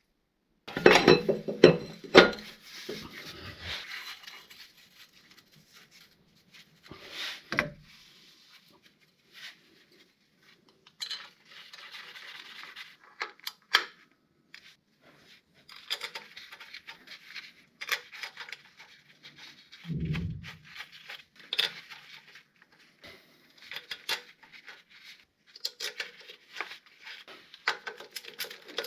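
Metal clinks and clatter of steel flywheel bolts and the flywheel being handled as the bolts are started by hand into the crankshaft. It comes as scattered clicks and knocks, loudest in the first few seconds, with a low knock about twenty seconds in.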